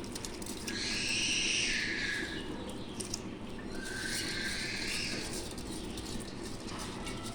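Raw jeerakasala rice poured into a pot of boiling water in two pours, each a hissing rush lasting about a second and a half, with a few light clicks against the pot.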